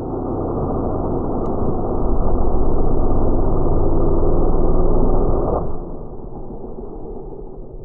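Chainsaw engine revving up to full throttle, holding there for about three and a half seconds, then dropping suddenly back to idle near the end.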